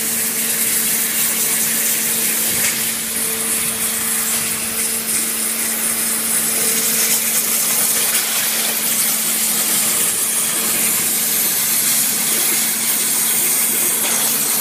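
High-pressure waterjet cutting 40 mm aluminium honeycomb with a 5-axis bevel head: a steady loud hiss, strongest in the treble, over a faint low steady hum.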